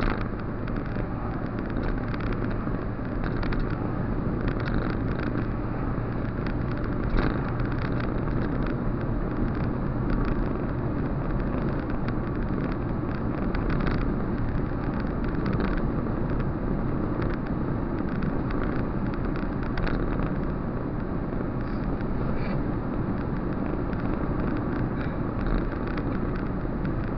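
Steady engine and road noise inside a moving car's cabin, with tyre rumble and a low engine hum. A few brief knocks come through in the middle.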